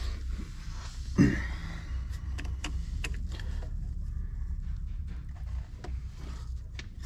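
Hands working the plastic wiring connector of an ATV's rollover (tilt) sensor under the rear frame: scattered small clicks and rattles as the plug is pushed back in, with one loud knock about a second in, over a steady low hum.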